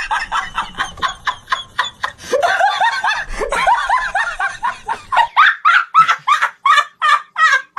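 Hearty laughter in quick repeated 'ha-ha' bursts, each falling in pitch. In the second half it turns into loud, regular laughs about three a second.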